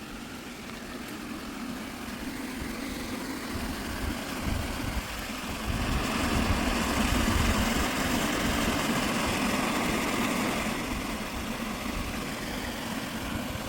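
Steady rushing of water at a creek waterfall, growing louder about six seconds in and then holding.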